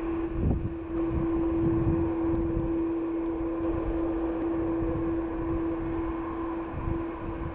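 Boeing 737-300's twin CFM56-3B1 turbofans at taxi idle: a steady, even whine over an uneven low rumble.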